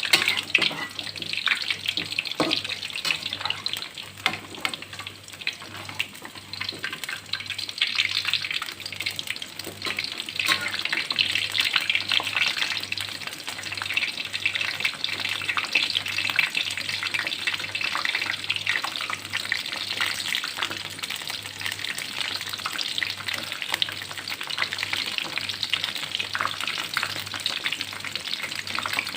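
Battered shrimp frying in hot oil: a steady, dense crackle.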